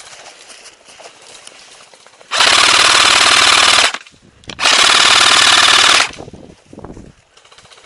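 Airsoft rifle firing two full-auto bursts close by, each about a second and a half long, with a short pause between them.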